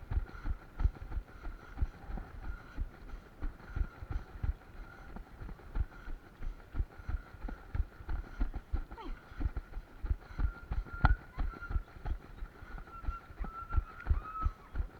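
A runner's footfalls on a trail, a steady beat of low thumps about two to three a second, with one sharper knock about eleven seconds in.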